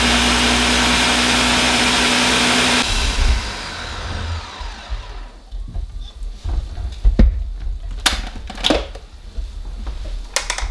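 Ninja countertop blender running at full speed, puréeing hot tomato soup in its plastic pitcher, then switched off about three seconds in and spinning down. A few sharp clicks and knocks follow near the end as the pitcher lid is unlatched and lifted off.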